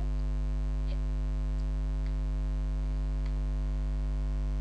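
Steady low electrical mains hum picked up on the recording line, unchanged throughout, with a few faint ticks about a second apart.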